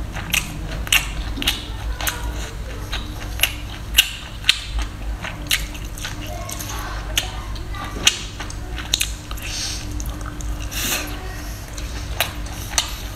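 A person chewing and biting baby octopus off a skewer: irregular sharp mouth clicks and smacks over a steady low hum.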